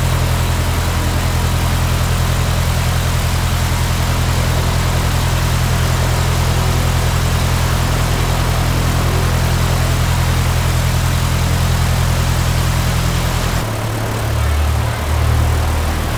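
Continental IO-370 fuel-injected four-cylinder aircraft engine idling steadily with the propeller turning, during its first-run oil warm-up. Near the end the engine's tone shifts abruptly and turns less even.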